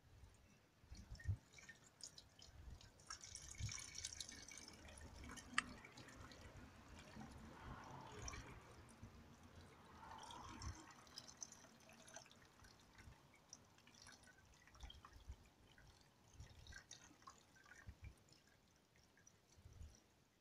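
Faint trickle of a thin stream of liquid poured slowly from a plastic jug into a car's coolant expansion tank, with a few small drips and clicks.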